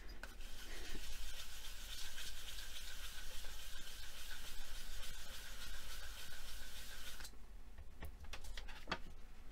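A hand rubbing firmly over a sheet of paper to burnish the polymer clay beneath it: a steady scratchy rubbing that stops about seven seconds in, followed by a few light taps as the paper is handled.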